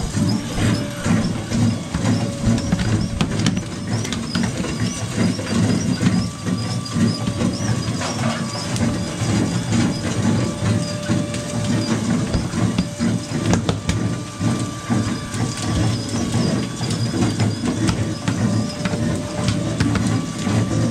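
Steady low rumble of the boat's Detroit Series 60 diesel engine running, with hiss of wind and water over it and scattered small knocks on deck.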